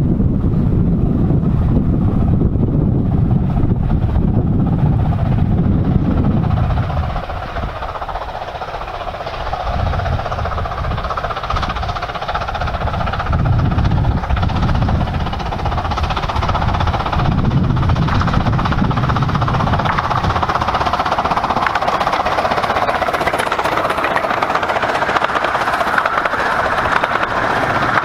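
Wind buffeting the microphone, then a 15-inch-gauge steam locomotive, the Romney, Hythe and Dymchurch Railway's No.8 Hurricane, a 4-6-2 Pacific, approaching and passing with its train of coaches. The running noise of the train grows louder toward the end.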